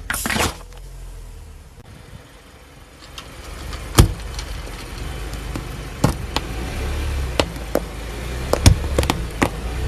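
A car moving slowly with a low rumble, with several sharp cracks and snaps as things break under its tyres; the loudest crack comes about four seconds in.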